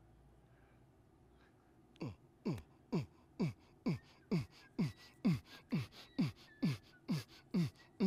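Electronic music beat: a deep kick drum whose pitch drops on each hit, about two hits a second, starting about two seconds in.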